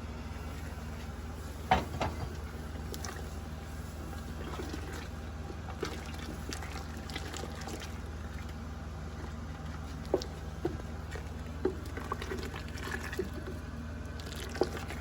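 Liquid sloshing and trickling in a gumbo pot as the rest of the ingredients go in, with a few sharp clinks of a utensil against the pot. A steady low hum runs underneath.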